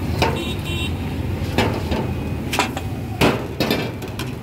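About six sharp knocks of hard objects striking, at uneven intervals, the loudest a little past three seconds in, over a steady low rumble of street traffic.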